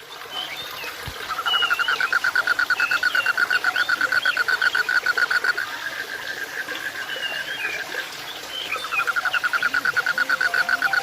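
Animal calls: a fast pulsing trill that runs for several seconds, breaks off, and starts again near the end, with short chirping calls scattered over it.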